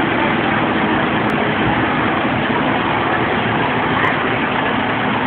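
Fire engine's diesel engine running loud and steady as the apparatus pulls out of the firehouse to respond.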